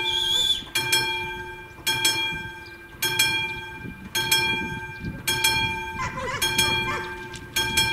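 Level crossing's classic warning bell striking about once a second, each stroke ringing out and dying away before the next, as the crossing signals warn of an approaching train.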